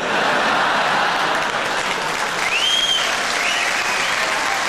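Theatre audience applauding steadily after a punchline, with a brief rising whistle about halfway through.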